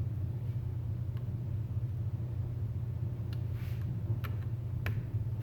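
A flat screwdriver prying at the retaining ring inside a brake wheel cylinder, making a few light, sharp metal clicks, the clearer ones about three to five seconds in. Under them runs a steady low hum.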